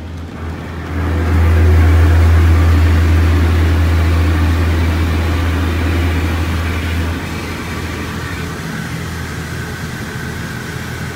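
Water jets of an automatic car wash spraying onto the car's body and windshield, heard from inside the cabin. A loud low rumble with hiss sets in about a second in and eases after about seven seconds, leaving a steadier spray hiss.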